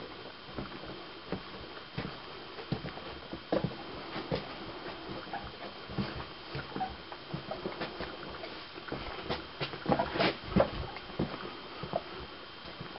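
Irregular knocks, taps and scrapes of people moving over and handling loose gypsum rock, with a louder cluster of knocks about ten seconds in.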